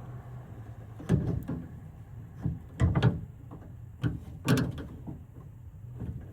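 A screwdriver working at a piece of the handle mechanism inside a Honda Odyssey sliding door, twisting to pry it loose: a series of short knocks and clicks, coming in pairs about every one and a half seconds.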